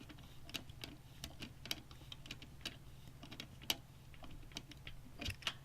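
Screw being turned through a fan filter into a plastic PC case fan with a screwdriver: irregular small clicks and ticks, several a second, over a faint steady low hum.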